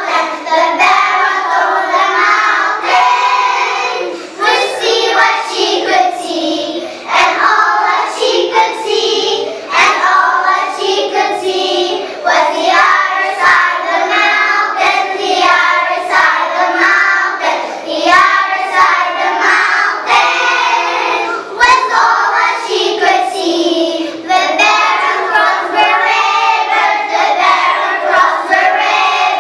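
A choir of young kindergarten children singing a song in English together, with continuous group singing.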